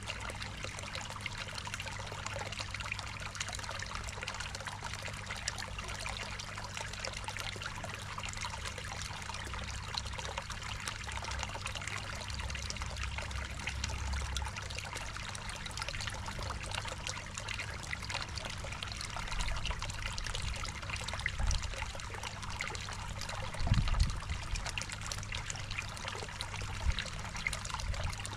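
Water trickling and splashing steadily into a koi pond, with a steady low hum underneath and a couple of low thumps late on.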